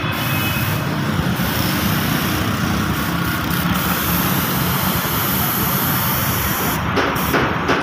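Loud, steady machine noise running without a break, like a motor.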